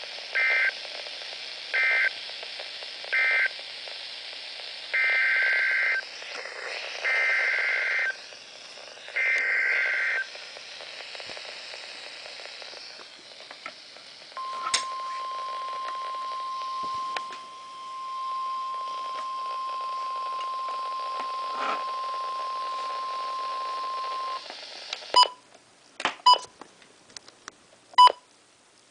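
Weather radio alert signalling over a hissy radio channel: a string of buzzing digital data bursts, three short and then three longer, followed after a pause by a single steady warning alarm tone held for about ten seconds. These are the coded SAME header and the alarm that announce a new warning. A few sharp clicks follow near the end.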